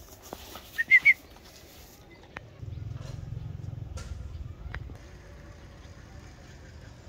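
A dog gives two short, high whimpering yelps about a second in, then a low rumble runs from about two and a half to five seconds in.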